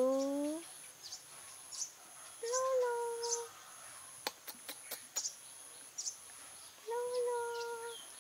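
Kitten meowing three times: a short rising meow at the start, then two longer, steadier meows a few seconds apart. A steady high insect drone with high chirps repeating about every half second runs underneath, and a quick run of clicks comes about halfway.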